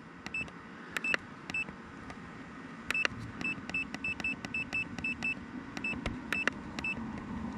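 Short high electronic menu beeps with small clicks, one beep for each step as a setting value on the DJI FPV goggles is stepped up. A few come singly, then a quick run of several a second follows about halfway through.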